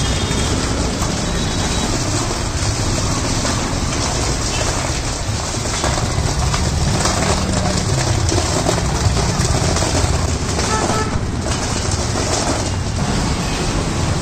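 Steady, loud, hiss-like noise of running machinery and street background, with no single event standing out.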